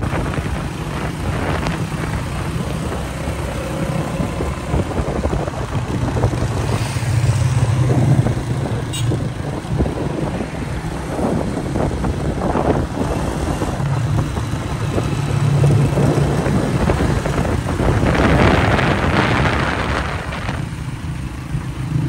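Honda CG 125 motorcycle's single-cylinder engine running as the bike rides along the road, with wind rush on the microphone. The engine note swells a couple of times with the throttle.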